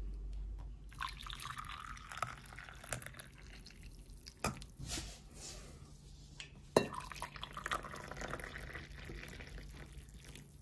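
Liquid being poured and dripping in two spells, with a few light clicks of dishes in between.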